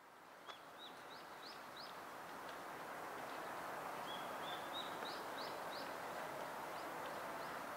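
Outdoor ambience fading in, with a small songbird singing two short phrases of quick rising chirps, a few notes each, over a steady background hiss.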